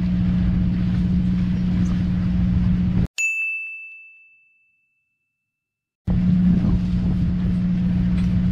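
Steady low drone of a fishing boat's engine, cut off about three seconds in by a single bright chime that rings out and fades into dead silence, an edit sound effect over a title card. The boat drone comes back about three seconds later.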